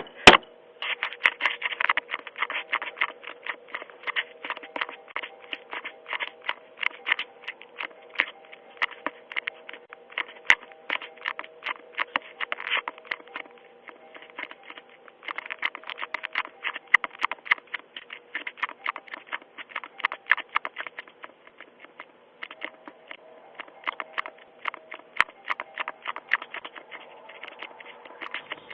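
Dense, irregular tapping and clicking, many taps a second with a couple of short pauses, picked up by a Ring video doorbell's microphone with its narrow, tinny range. A faint steady hum runs underneath.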